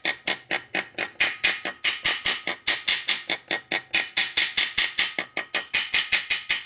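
Rapid, steady hammer taps, about five a second: a ball-peen hammer striking a steel socket to drive the sprocket-shaft main seal into the aluminum engine case of a 1977 Harley XLCR ironhead Sportster.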